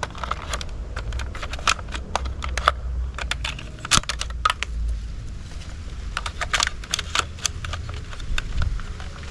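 Plastic toy gun being handled: irregular clicks and knocks of plastic parts, with one sharper knock about four seconds in.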